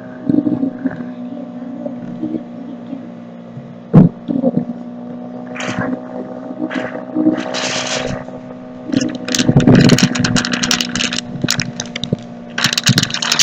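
Steady low hum under intermittent handling noises: a sharp knock about four seconds in, short scrapes, and a burst of rapid clicking and clattering around ten seconds.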